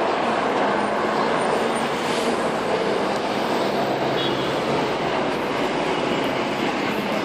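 Loud, steady rolling noise of a passing vehicle, with a faint low hum under it.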